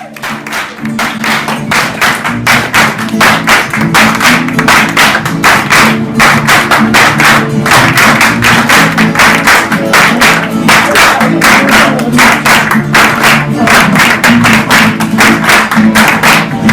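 Music on strummed guitar, quick even strokes over a steady run of low notes, fading in over the first couple of seconds.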